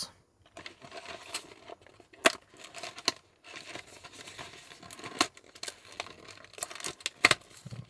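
Cardboard chocolate box being handled and opened by hand: scattered sharp clicks and crackles of the paperboard and packaging, the loudest snaps a little after two seconds in and again near the end.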